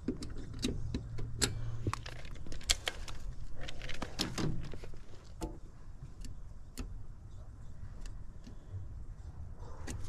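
Irregular sharp metallic clicks and clinks of metal objects being handled, over a low hum during the first two seconds.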